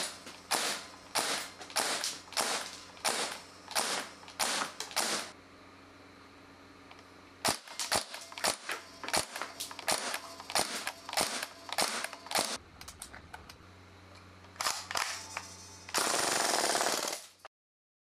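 WELL G55 MP5K-style airsoft gas blowback submachine gun firing shot by shot, each sharp crack with the bolt slamming back, in three runs of single shots roughly half a second to a second apart. Near the end comes one continuous noisy burst of about a second and a half, then the sound cuts off suddenly.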